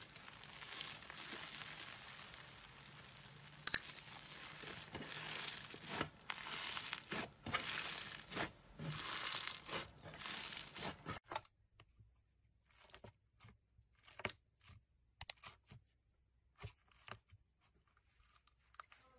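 Fluffy, cloud-textured slime being stretched and torn apart by hands: crackly tearing and crinkling, with two sharp snaps about four seconds in. After about eleven seconds this stops, and faint scattered clicks follow as a small tool pokes into red slime packed with small beads.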